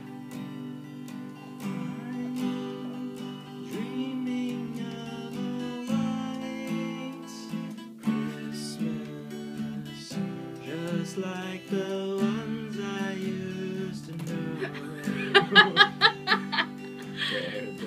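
Acoustic guitar strummed steadily, playing a Christmas carol. Near the end a voice cuts in with a quick run of short, loud sounds, about four a second, louder than the guitar.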